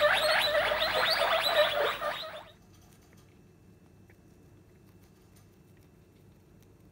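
Guinea pig wheeking, a dense run of short squeaky calls several a second, which cuts off suddenly about two and a half seconds in. Then it is nearly quiet, with faint soft clicks of a baby guinea pig nibbling lettuce.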